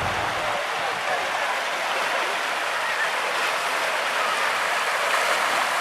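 Steady rushing and splashing of water-park water, with faint voices of people in the background.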